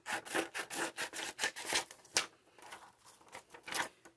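Scissors cutting around a design on a sheet of sublimation transfer paper: a quick, uneven series of snips, about three a second.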